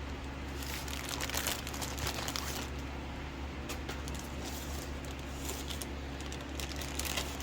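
Packaging crinkling and rustling as it is handled, made of many small irregular crackles throughout.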